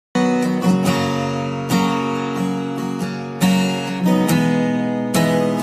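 Background music: a strummed acoustic guitar playing chords, with a momentary break right at the start.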